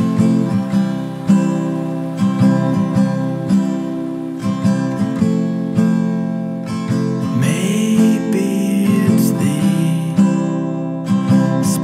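Acoustic guitar playing a song, a steady run of plucked and strummed notes ringing over one another.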